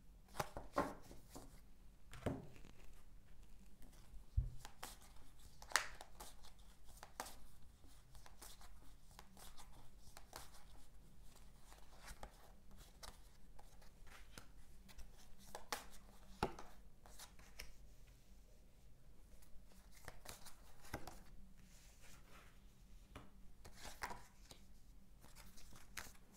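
A deck of cards being shuffled and handled: scattered soft taps, flicks and rustles of the cards, with a few sharper snaps among them.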